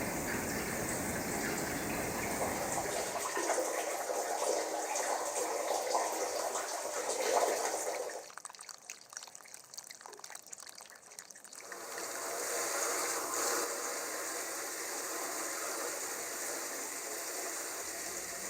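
Water running through a drain pipe: a steady gushing flow that drops to an irregular dribble about eight seconds in, then runs steadily again from about twelve seconds.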